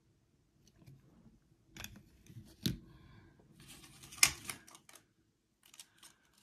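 Light clicks and taps of coin holders being handled and set down on a table: a cardboard 2x2 coin flip and a plastic coin capsule. The taps come scattered, with the sharpest one a little before the middle and another about a second and a half later, with a faint rustle between them.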